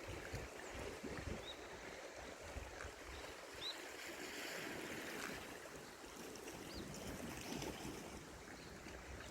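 Wind gusting on the microphone over a steady wash of sea waves, with a few faint short high chirps.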